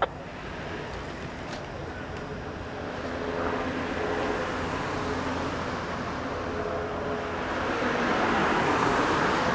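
Street traffic noise: a steady road hum, with a vehicle passing close that is loudest about eight to nine seconds in. A short sharp click comes right at the start.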